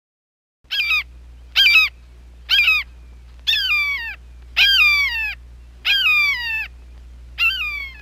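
A hawk giving a series of seven short screams, each sliding down in pitch, about one a second, starting under a second in. A steady low hum runs beneath the calls.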